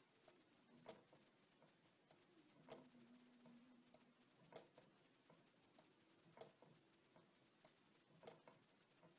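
Faint ticking from a small low-temperature-differential Stirling engine running on a candle. Each turn gives a light click and then a stronger one about half a second later, and the pair repeats about every two seconds.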